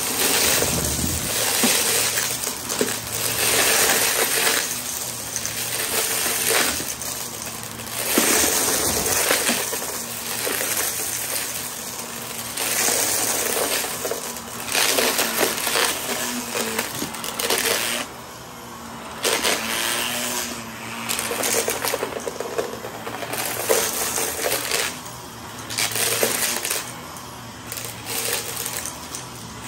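Upright vacuum cleaner running over a shag rug, crunching as it sucks up gritty debris, getting louder and quieter with each push-and-pull stroke.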